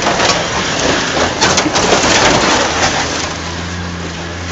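Loud, close crunching and crackling, with the sharpest crackles around the middle. From about three seconds in, the steady low hum of a four-wheel drive's engine at low revs comes through.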